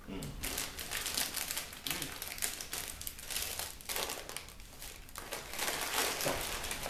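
Crunchy rice-and-bean chips being bitten and chewed close to the microphone: rapid, irregular crackly crunching, with crinkling of snack packaging.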